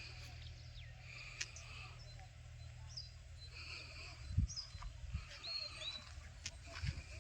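Small birds chirping and calling outdoors, with several short whistled notes that bend in pitch. Underneath is a low steady rumble that fades out about halfway through, followed by a couple of soft low thumps.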